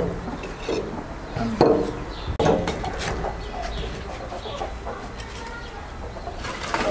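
Chickens clucking: several short calls, loudest in the first three seconds and fainter after.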